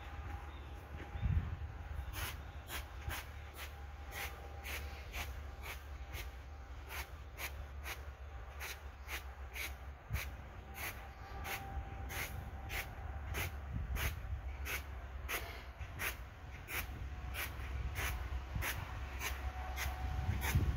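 Push broom sweeping an artificial-grass carpet in short, even strokes, a little over two a second, starting about two seconds in. A single low thump comes just before the sweeping starts.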